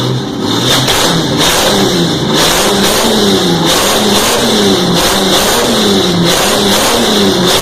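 Tornado straight-six engine, the four-main-bearing version, revved over and over, its pitch rising and falling about once every 0.7 seconds as the throttle is blipped.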